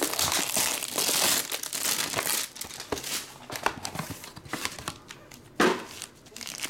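Plastic packaging crinkling and rustling as a box is opened and a black plastic-wrapped pack is handled. The crinkling is dense for the first couple of seconds, then thins to scattered rustles and clicks, with one short louder rustle near the end.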